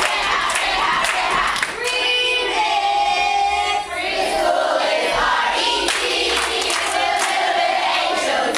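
A roomful of children and adults singing and chanting together in rhythm, with one long held note in the middle.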